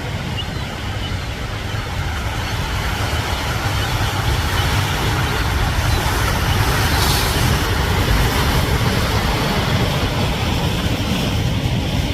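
Strong wind buffeting the microphone over ocean surf, a wave washing in loudest about seven seconds in.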